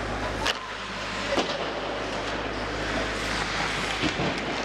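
Ice hockey play: skates scraping and hissing on the ice over a steady low hum, with two sharp clacks of stick or puck about half a second and a second and a half in.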